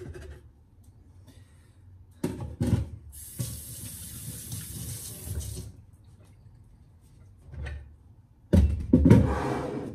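A kitchen tap runs for about two and a half seconds, just after a couple of knocks. Near the end comes a louder burst of rustling and knocks, the loudest moment.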